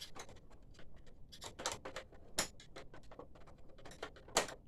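Irregular small clicks and taps of plastic parts and tools being handled as an Epson 1400 printer's control panel is unscrewed and worked loose, with one louder knock near the end.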